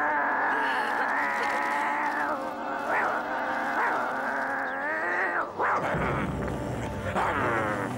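Cartoon dogs giving long, drawn-out yelping calls that bend up and down in pitch, with a sharp downward sweep about five and a half seconds in and an upward one near the end.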